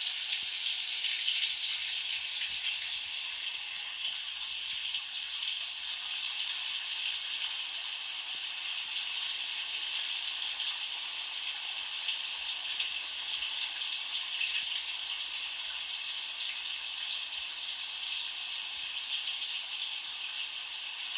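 Shower water running steadily from a film's soundtrack, the hiss of spray in a tiled shower, played through a screen's speakers.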